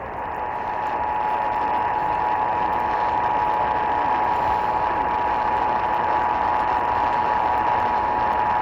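Emergency Alert System attention signal: the steady two-tone alert (853 Hz and 960 Hz together) held for several seconds, received on an AM radio with static hiss underneath. It marks the start of a Required Monthly Test.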